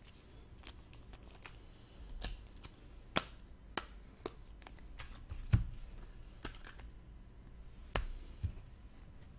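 Hockey trading cards being handled and flipped through: scattered light clicks and taps, with a sharper knock about five and a half seconds in and another about eight seconds in.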